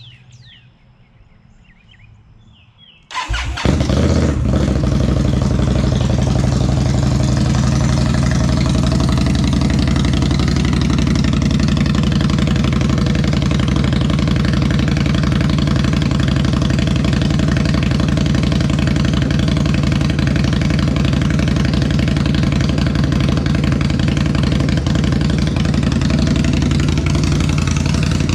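2018 Indian Scout Bobber's liquid-cooled V-twin, fitted with Vance & Hines Twin Slash Cut slip-on mufflers, cold-starting about three seconds in and then idling loudly and steadily.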